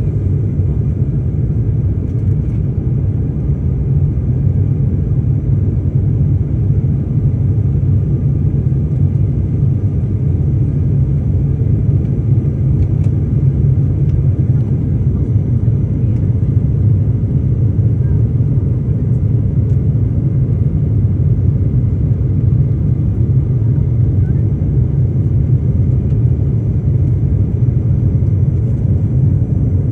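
Airbus A320 airliner during takeoff, heard from inside the cabin: a loud, steady, low rumble of the jet engines at takeoff thrust, with no change in level.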